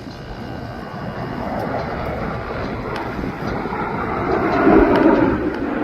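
BAE Hawk T1 jets flying past in formation, the jet noise swelling to a peak about five seconds in and then starting to fall away.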